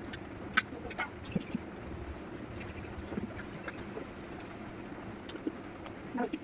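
Eating sounds: a few short, sharp clicks and smacks of someone chewing and handling food, the loudest about half a second in, over a steady background hiss.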